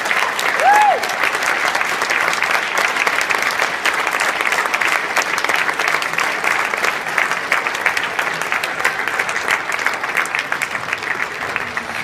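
Audience applauding steadily, with one short rising-and-falling whoop about a second in.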